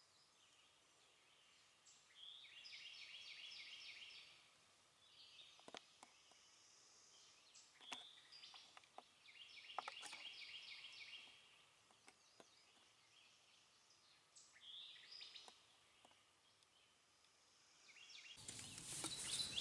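A small songbird singing, faint: short phrases of quick high notes, repeated about five times with pauses between, and a few faint clicks. Near the end a louder rustling noise comes in.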